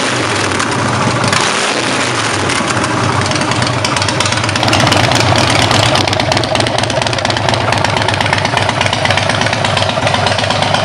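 Harley-Davidson 96-cubic-inch Twin Cam V-twin, stage one, running through Freedom Performance Declaration Turnout straight pipes, idling steadily and loud. The exhaust note grows a little fuller and louder about five seconds in.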